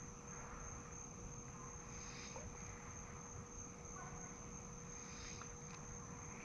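Insects trilling steadily at a high pitch, with a short, softer buzz repeating about every three seconds. A faint low rumble runs underneath.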